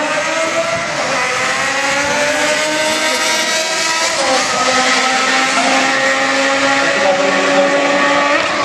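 T-Rex's Kawasaki 1400 inline-four motorcycle engine revving hard as the vehicle accelerates through a cone course. Its note climbs and drops back several times with the throttle and gear changes, sounding more like a sport bike than a car.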